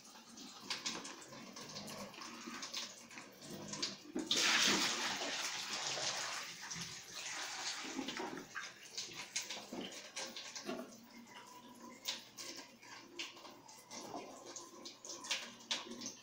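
Water pouring and splashing for a few seconds, about four seconds in, as a plastic chicken drinker is handled and emptied. Scattered knocks and clicks of the plastic drinker being moved come before and after.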